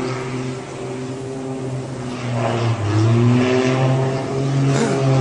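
Aircraft engine running loudly with a steady low hum whose pitch wavers, rising and falling as the plane dives steeply toward the sea.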